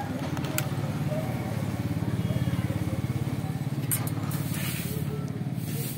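A small engine idling steadily with a fast, even pulse, with a couple of light clicks over it.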